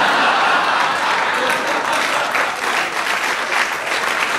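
Studio audience applauding, with laughter mixed in: a steady, dense patter of many hands clapping.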